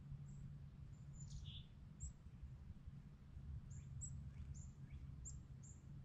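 Small birds chirping: short, very high notes that each drop quickly in pitch, about nine of them, over a low steady hum.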